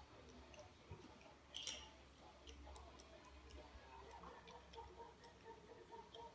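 Faint, scattered metallic clicks and ticks of a small wrench tightening the nut of a tire valve stem fitted through a mason jar lid, with one slightly louder scrape about a second and a half in.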